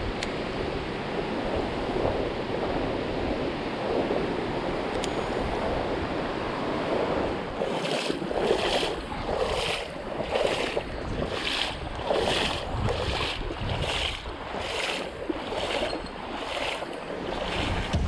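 Mountain stream water rushing steadily. About halfway through, a regular rhythmic noise joins it, repeating a little faster than once a second.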